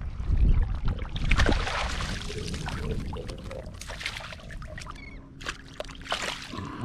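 Shallow surf water sloshing and splashing around a wading angler's legs while he handles a freshly landed ladyfish, heaviest in the first second and a half. A few sharp clicks and a faint steady hum follow near the end.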